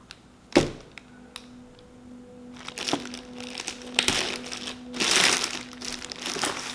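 A boxed figure in a loose clear plastic bag is set down on a wooden table with one sharp thump, then the plastic crinkles and rustles as hands grip and press it around the cardboard box.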